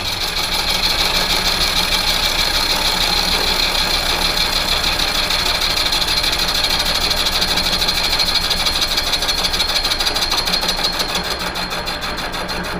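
Victor engine lathe running steadily, turning down the Eutalloy bronze-nickel weld build-up on an electric motor rotor shaft, with a fine rapid ticking over a steady hum. It winds down at the very end.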